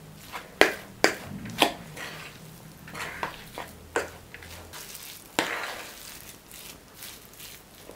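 A fork mixing a thick, mayonnaise-bound filling of mashed fish, grated cheese and egg in a large bowl: soft squelching and scraping, with irregular sharp clicks of the fork against the bowl and a longer scraping swish about five and a half seconds in.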